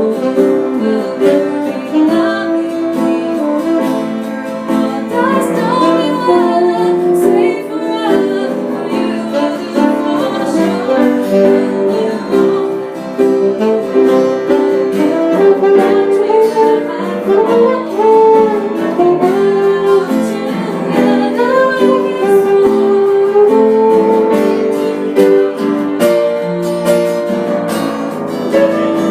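A small jazz band playing a song: plucked guitar under a melody line, with singing.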